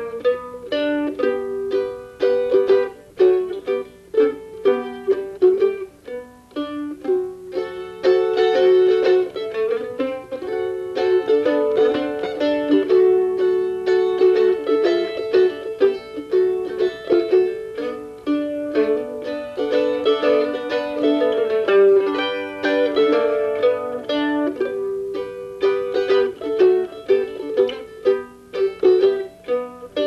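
A Gibson F5 mandolin playing a solo melody with fast picked notes. In the middle, long held notes are sustained by tremolo picking.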